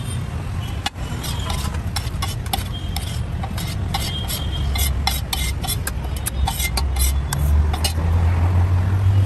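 Metal spatula clacking and scraping on a flat metal griddle as chickpea curry is chopped and scooped onto a steel plate: a quick, irregular run of sharp metallic clacks, thickest in the middle, over a steady low rumble.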